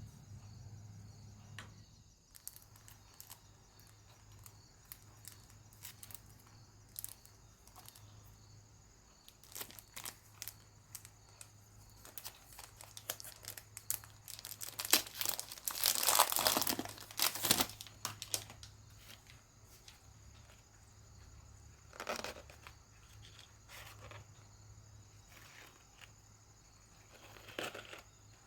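Packaging being handled and torn open: scattered small clicks and rustles, with a louder stretch of tearing and crinkling lasting a couple of seconds about halfway through.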